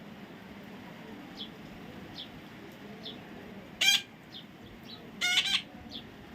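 Parrot calling: short high falling chirps every second or so, with two loud calls about four and five seconds in, the second one longer.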